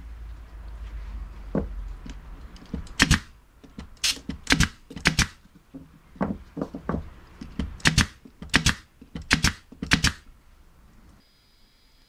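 Handheld nail gun firing nails into wood: about a dozen sharp snaps at irregular intervals, some in quick pairs, from about three seconds in until about ten seconds in.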